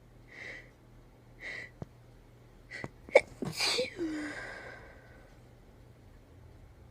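A person's deliberately induced sneeze: three short breaths in, then the sneeze about three seconds in, a sharp loud burst followed by a longer blast with a falling voiced tail.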